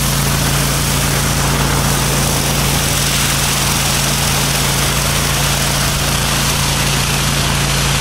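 Pressure washer running with a wheeled rotary surface cleaner spraying onto pavement: a steady low hum under a loud, even hiss of water spray.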